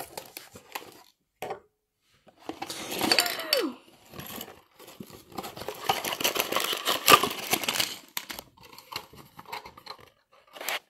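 A small LEGO cardboard box being torn open and handled: tearing and crinkling of cardboard and plastic packaging with light clicks and rattles, densest and loudest in the middle.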